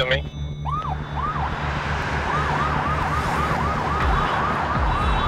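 Police car siren: two slower rising-and-falling sweeps, then a fast yelp of about four sweeps a second.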